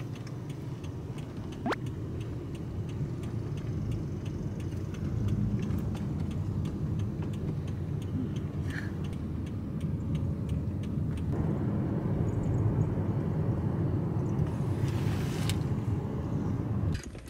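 Steady low rumble of a car heard inside its cabin, with faint, evenly spaced ticking through the first half. The rumble grows a little louder and hissier from about eleven seconds in.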